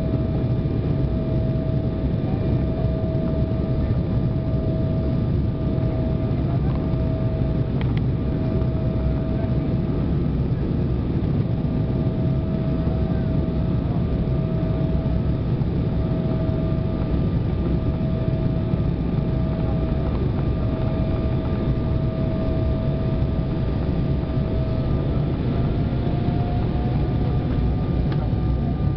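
Embraer 190 airliner on landing approach, heard inside the cabin: a steady roar of its turbofan engines and airflow, with a steady whine that rises slightly in pitch near the end.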